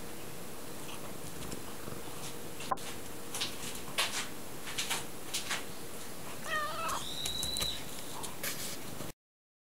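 A tortoiseshell cat moving about on newspaper, making scattered soft crinkles and taps, with one short wavering meow about two-thirds of the way in that runs into a thin high held note. The sound cuts off suddenly near the end.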